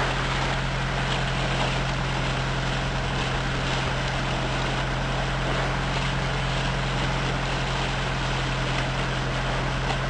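Sailboat's engine running steadily at constant speed: a low, even drone under the rush of wind and water.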